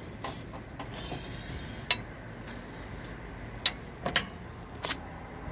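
Steel lug wrench clinking against the lug nuts of a steel wheel as a stiff nut is worked loose: a handful of sharp metallic clinks, two in quick succession about four seconds in.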